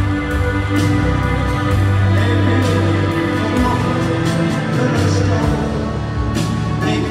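Live band music over a loud arena sound system: held chords over a heavy low bass, instrumental with no singing.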